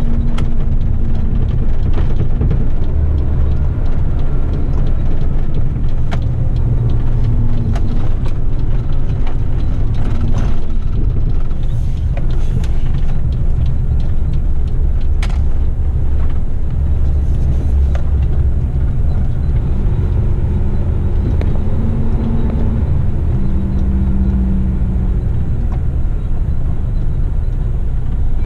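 Diesel engine and road noise heard inside the cab of an Isuzu heavy rigid truck on the move. The engine note steps up and down several times as speed changes, with scattered clicks and rattles from the cab.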